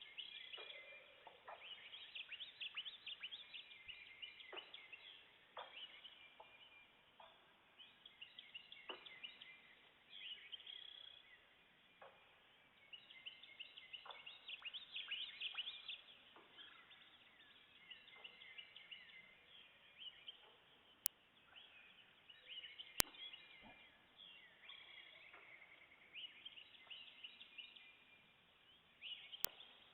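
Many birds singing and chirping at once, with a single short knock of unknown source every one to three seconds, repeating on and on. Three sharp clicks stand out in the second half.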